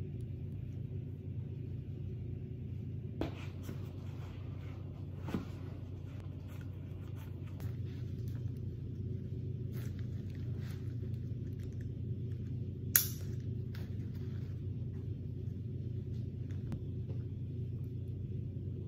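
Steady low rumble of room noise, with a few brief clicks from handling clothing and gear; the sharpest click comes about two-thirds of the way through.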